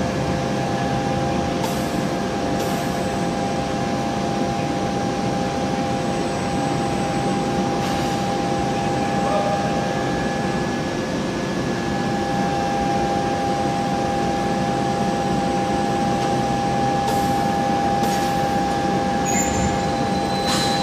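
Steady machinery hum of a hot-forging line, several steady tones over a broad noisy background, with a few faint clicks; no press blow is heard.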